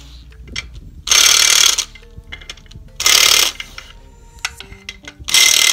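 A ratchet wrench being worked in three short, loud bursts of rapid clicking about two seconds apart, tightening the flywheel bolts on an LS V8 crankshaft. Background music plays underneath.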